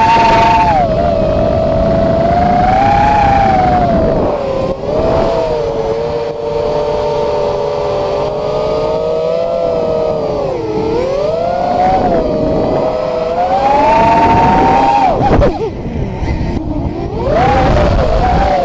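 FPV quadcopter's brushless motors and propellers whining: several close tones that rise and fall together with the throttle, dropping sharply about three-quarters of the way through and then climbing again, over a low rush, heard through the onboard action camera's microphone.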